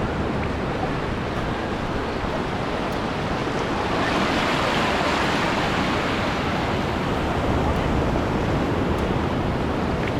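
Ocean surf at the shoreline: a steady wash of waves, with one wave breaking and rushing up louder about four seconds in, then easing. Wind rumbles low on the microphone.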